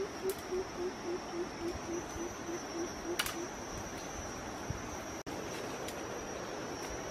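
Insects droning steadily on one high-pitched note. Through the first half, a low hooting call repeats about four times a second, sliding slightly lower. There is one sharp click a little after three seconds in.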